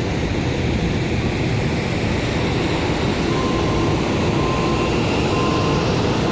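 Steady jet aircraft noise with a thin high whine. Four short faint beeps at one pitch come at about one-second intervals from about three seconds in.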